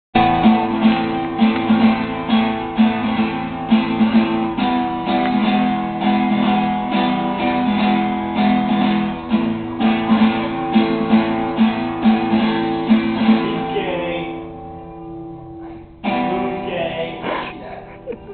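Acoustic guitar strummed in a steady rhythm, about two strums a second. The playing dies away about fourteen seconds in and starts again about two seconds later.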